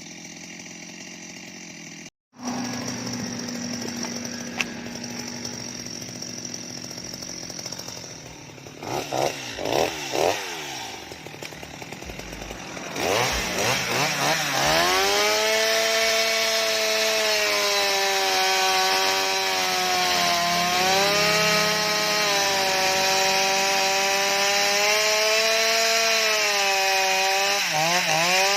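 Stihl MS 230 two-stroke chainsaw idling, blipped a few times, then held at full throttle from about halfway through as it cuts into a mango trunk, the engine pitch sagging and recovering under load.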